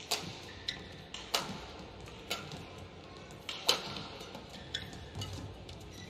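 Badminton rackets striking a shuttlecock back and forth in a rally, a sharp hit about every second. The hardest hits come about a second and a half in and near four seconds.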